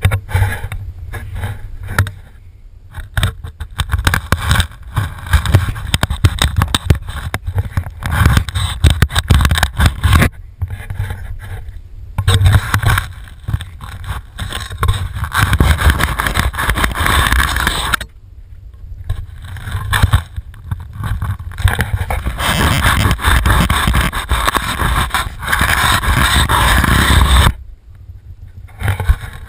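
Scraping and rubbing noise picked up by a GoPro mounted on a fillet knife as the blade cuts through salmon fillets on a carpet-covered board. It runs in long stretches, broken by brief pauses three times.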